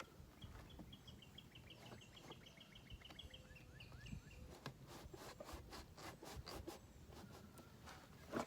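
Faint outdoor quiet with a rapid trill of short high chirps, about seven a second, lasting some four seconds, followed by a run of quiet scrapes and clicks from hands working a rubber coupling onto a sewer pipe.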